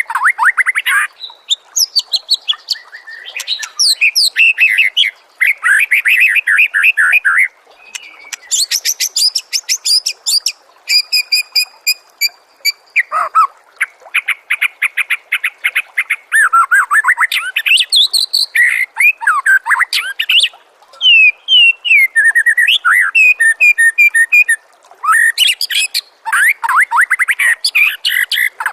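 Songbird masteran (training song for a white-rumped shama): a loud, unbroken string of varied phrases. Fast trills, rising and falling whistles, rapidly repeated notes and very high chips follow one another, changing abruptly every second or two.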